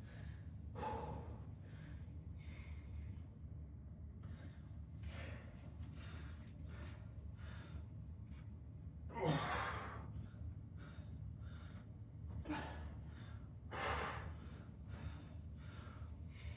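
A man breathing hard with exertion during an exercise set, with short breaths about every second and two loud exhales about 9 and 14 seconds in, over a steady low hum.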